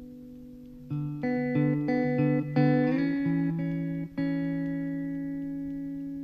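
Background music on plucked guitar: a held chord fading, a quick run of single notes about a second in, then a new chord struck around four seconds in that slowly dies away.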